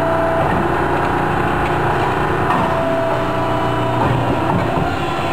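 Hydraulic multi-convolution bellows forming machine running: a steady hum with several steady tones that come and go, and clattering of the steel forming dies as they close and spread.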